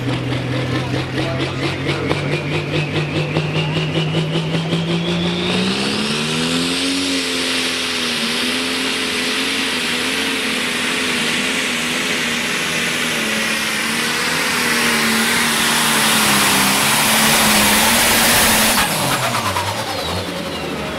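Turbocharged diesel pulling tractor making a pull: the engine revs up over the first few seconds with a rising turbo whistle, then runs flat out with a loud hiss, its pitch wavering, until the throttle is cut about two seconds before the end and the engine winds down.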